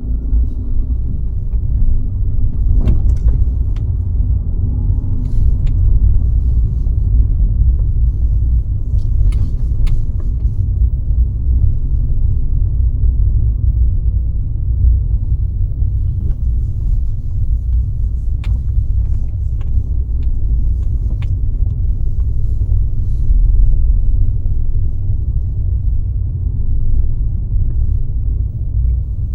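Car driving along a road: a steady low rumble of engine and tyre noise, with a few faint clicks or ticks scattered through it.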